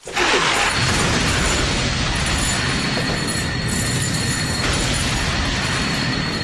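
Stock fire sound effect: flames catching all at once and burning with a steady rushing noise.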